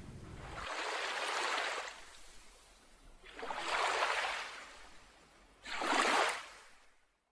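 Water washing in three surges like small waves, each swelling and falling away, the last one shorter and sharper.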